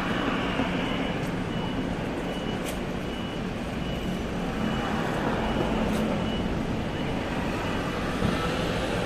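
Steady low background rumble, with a faint high tone that pulses on and off at an even pace throughout.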